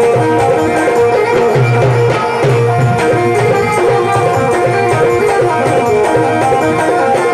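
Instrumental folk devotional music: a dholak, a two-headed barrel drum, plays a steady hand-beaten rhythm of deep strokes under a sustained melody on harmonium and electronic keyboards.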